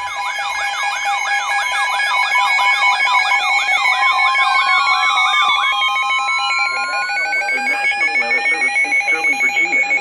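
Several NOAA weather radios sounding their alert tones at once for a new warning: a fast warbling siren-like tone, steady beeps and a rapid on-off beep layered over slow rising and falling sweeps. Near the end the warbling gives way to a fast pulsing alarm.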